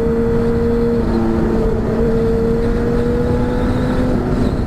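Honda Hornet's inline-four engine running at a steady, unchanging pitch through an aftermarket slip-on exhaust tip, under a dense low rumble while riding.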